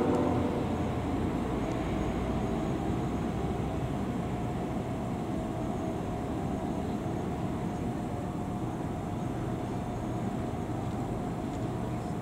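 A train horn fades out just at the start, leaving a steady vehicle rumble with a faint hum.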